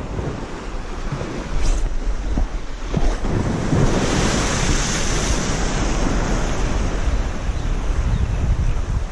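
Sea waves washing against a rocky shoreline, with wind buffeting the microphone as a steady low rumble. A wave breaks and splashes against the rocks about four seconds in, the loudest moment.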